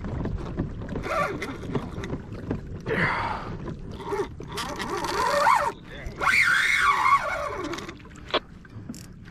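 Spinning reel being cranked hard against a hooked fish on a bent rod, in several bursts of whining line and reel noise that rise and fall in pitch. The noise eases near the end.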